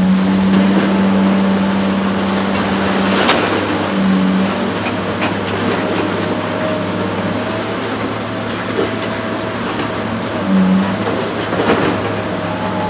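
Heavy demolition excavator's diesel engine running under load with a high hydraulic whine, a deep droning tone that comes and goes, and two sharp knocks, the louder about three seconds in and another near the end.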